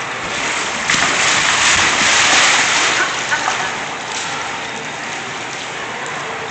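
Water splashing and sloshing in a shallow pool as children push and roll inflatable water-walking balls through it, with a louder surge of splashing about a second in that lasts around two seconds.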